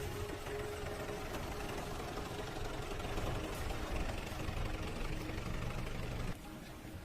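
An engine running steadily, cutting off suddenly a little past six seconds in.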